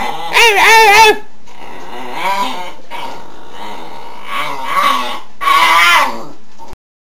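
A dog making its odd warbling, moaning vocal sound instead of barking: long wavering pitched calls, loud for the first second, softer for a few seconds, then loud again before the sound cuts off suddenly near the end.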